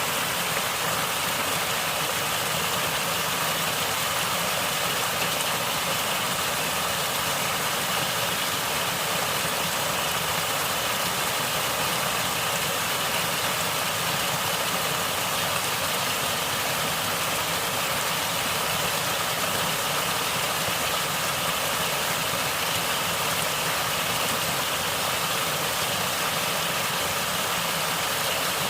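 Natural water gurgling and flowing steadily, as a stream or small waterfall does.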